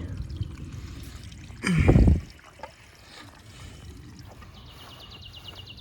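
Small solar-pumped pondless waterfall trickling steadily over rocks. About two seconds in, a short, loud voice-like sound falls in pitch over it.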